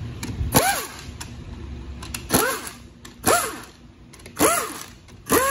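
A handheld power wrench fired in five short bursts, each one spinning up and winding down with a hissing whine, as bolts are run out of an automatic transmission's valve body.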